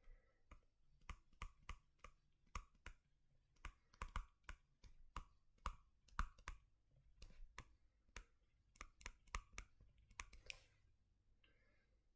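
Faint, irregular light clicks and taps, a few a second with short pauses, made while writing and drawing out a reaction scheme.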